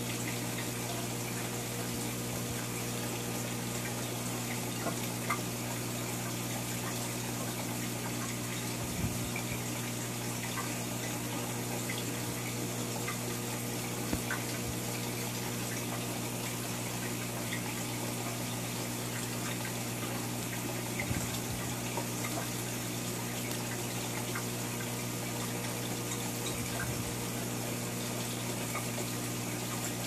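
Steady running of aquarium pumps and circulating water: a constant rush of water over a low, even hum, with a few faint clicks.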